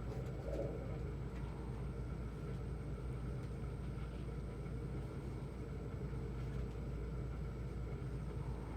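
Steady low background hum with a few faint constant tones in it, unchanging throughout, like a running fan or other machine.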